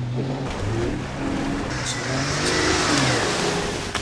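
Lifted Jeep Cherokee XJ engine revving up and down several times as it climbs a rocky dirt trail.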